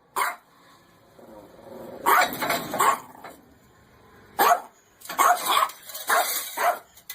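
A dog barking in short, separate bursts: one near the start, a few about two seconds in, then a quick run of barks in the last couple of seconds.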